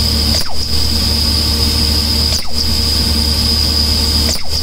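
Track-side flash butt welding plant running steadily: a low engine drone under a strong, high-pitched steady whistle. About every two seconds there is a brief dip with a quick falling sweep.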